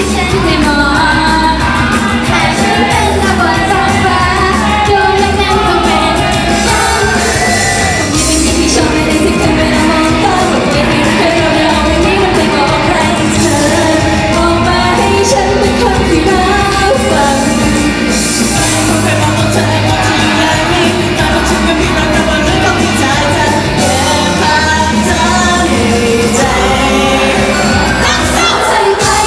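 Live idol-pop song: young women singing into microphones over a loud pop backing track in a large hall.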